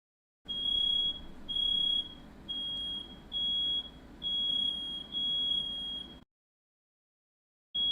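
Smoke alarm sounding a string of high-pitched beeps, roughly one a second, set off by smoke from a firework set off indoors; the beeping cuts off suddenly.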